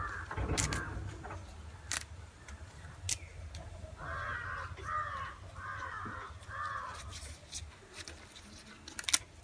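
Crow cawing: a couple of harsh caws at the start, then a run of four caws about four seconds in. Scattered light clicks and rustles of leaves and stalks being snapped and handled.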